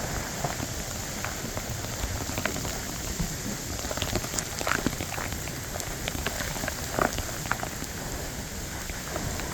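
Steady hurricane rain falling and splashing on wet ground, with scattered sharp drop ticks close to the microphone.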